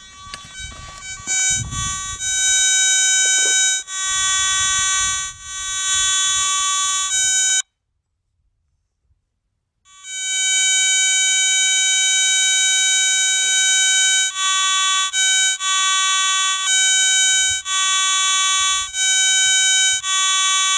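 Metal detector sounding its target tone, a steady buzzy high note held for about a second at a time and broken by short gaps as the coil passes back and forth over a target in a dug hole. It cuts out for about two seconds near the middle, then starts up again.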